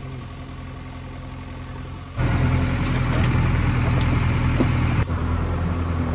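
Diesel engine of heavy farm or construction machinery running steadily at an even pitch. The sound steps abruptly louder about two seconds in and breaks briefly near five seconds, as at edit cuts.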